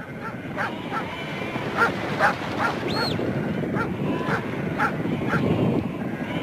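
Sheepdogs barking repeatedly, about twice a second, over the dense noise of a large flock of sheep on the move. One short rising-and-falling whistle sounds about three seconds in.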